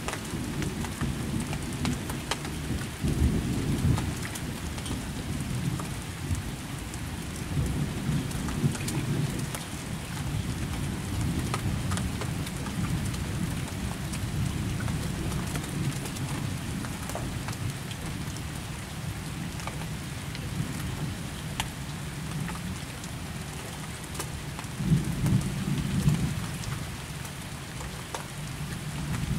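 Rain falling steadily with thunder rumbling low, swelling about three seconds in and again near the end, and scattered faint ticks of drops.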